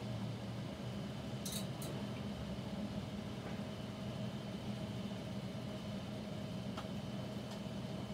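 Microwave oven running with a steady hum, with two faint high ticks about a second and a half in and another faint click near the end.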